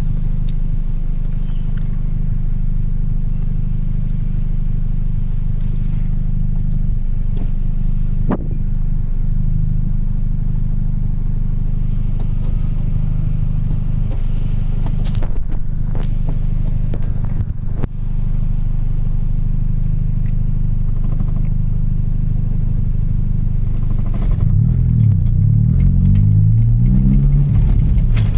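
Straight-piped Mk1 Audi TT 180's 1.8-litre turbo four-cylinder running at a steady idle, then revved up and down several times near the end.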